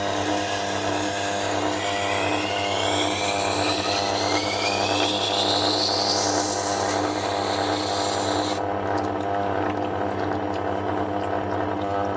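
Tormek T8 wet grinder running with its SG250 stone grinding the edge of a steel chef knife: a steady motor hum under a scraping of steel on wet stone, with a whine that rises in pitch from about two seconds in. About two-thirds of the way through the scraping stops as the blade comes off the stone, and the motor runs on.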